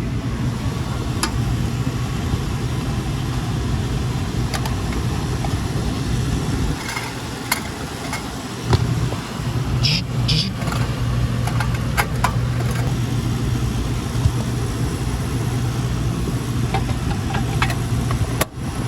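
Walk-in cooler condensing unit running with a steady low hum, its compressor and fan working, with scattered short clicks and knocks over it. The hum weakens for a couple of seconds about seven seconds in, then returns.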